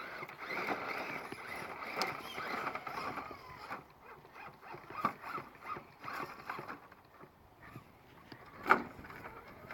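Radio-controlled rock crawler driving over rocks: electric motor and gears whirring in spurts, with scrapes and clicks from tires and chassis, busiest in the first few seconds, and one sharp knock near the end.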